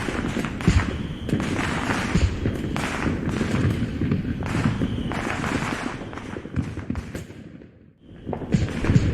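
Fireworks sound effect: a dense run of bangs and crackling from aerial shells bursting, overlapping one another. It thins out and almost stops about eight seconds in, then sharp bangs start again.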